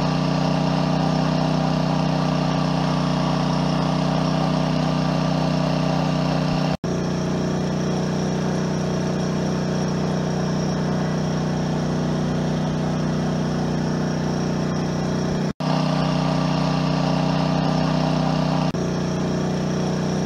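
Amico AIG2000 inverter generator running steadily under an 800 W load, heard as several back-to-back recordings joined by abrupt cuts. It is first heard with the stock case, then with the case lined with sound-deadening material, when it runs slightly quieter.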